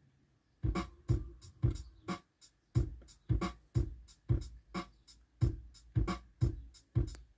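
Music with a strong, steady beat of about two hits a second, starting about a second in. It is played from a phone through a newly fitted Bluetooth aux adapter and the car stereo as a sound test.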